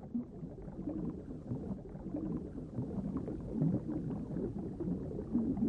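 Muffled underwater ambience: a low, uneven rumble with gurgling water movement.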